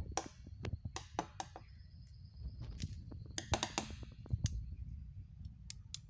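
Footsteps crunching on dry leaf litter and twigs, an irregular run of sharp crackles and clicks, over the low rumble of a phone being handled as it is carried.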